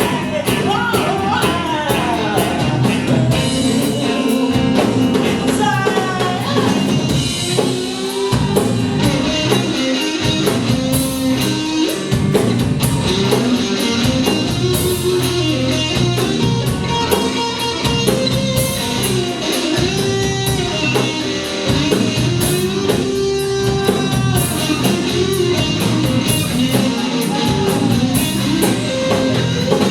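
A band playing a rock-and-roll number: a lead guitar line with bent notes over drum kit and bass, an instrumental passage with no sung words.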